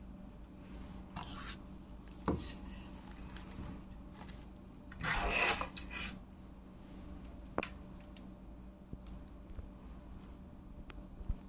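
Hands handling microphone packaging and its paper contents: scattered clicks and taps, with a longer rustle about five seconds in.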